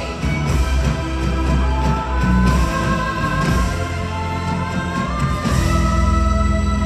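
Music with sustained instrumental notes that step from pitch to pitch, played loud.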